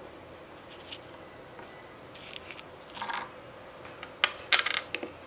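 Dried shiitake mushroom pieces and small miniature dishes handled: a few soft rustles, then a quick cluster of sharp light clicks and taps about four to five seconds in.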